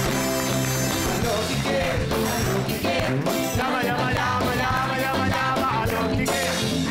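Upbeat studio music with a steady beat.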